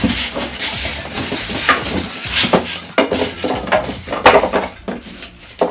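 Styrofoam packing pieces being lifted and pulled out of a cardboard box, foam rubbing and knocking against foam and cardboard in a run of irregular scrapes and thumps.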